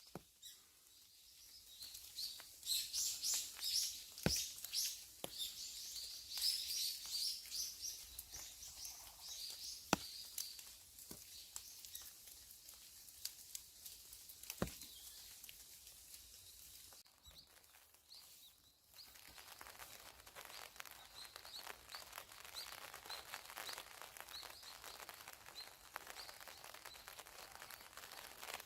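Small birds chirping and singing in quick runs of high notes, busiest in the first several seconds. A few single sharp clicks fall in between. Later a soft rustling hiss runs under faint scattered chirps.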